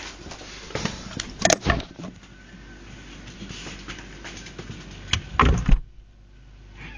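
Knocks and rattles of a fridge being handled, then its door thudding shut about five and a half seconds in, after which the sound turns quiet and muffled.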